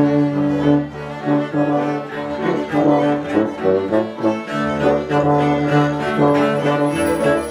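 Live acoustic ensemble music: a bowed cello, a euphonium and a didgeridoo playing together in held notes.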